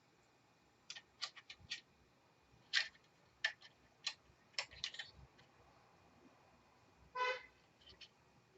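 Small sharp clicks and taps of screws and a screwdriver on a laptop's plastic case, about a dozen over four seconds. A brief buzzy sound comes about seven seconds in, then two more clicks.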